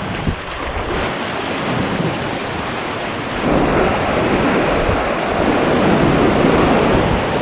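Rushing river water with wind buffeting the microphone, a steady noisy wash that grows louder about three and a half seconds in.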